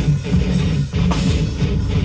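Hardcore band playing live: heavy distorted guitars and bass over hard-hitting drums, recorded loud from the crowd.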